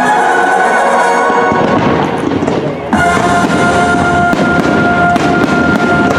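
Fireworks crackling and popping over loud show music. About three seconds in, the music surges into a held chord, and rapid crackles run on through it.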